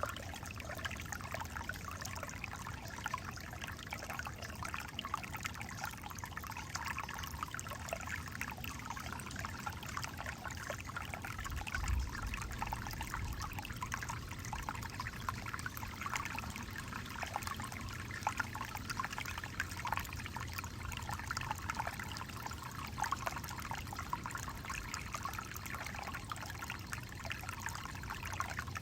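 Creek water trickling and babbling over rocks, a steady flickering splash with no letup. About twelve seconds in there is a brief low bump.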